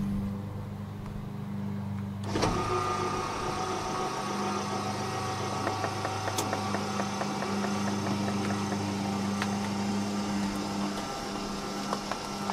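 Fifth-wheel trailer's electric landing-gear motor starts about two seconds in and runs steadily, lowering the kingpin's weight onto the truck's hitch, over a steady low hum.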